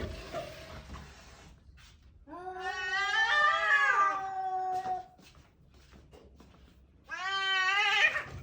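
Domestic cat giving two long, drawn-out meows with a wavering pitch: the first lasts nearly three seconds, the second is shorter and comes near the end.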